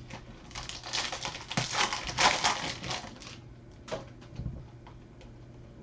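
Foil trading-card pack wrapper being torn open and crinkled, a dense crackle for about three seconds, followed by a few light clicks of cards being handled.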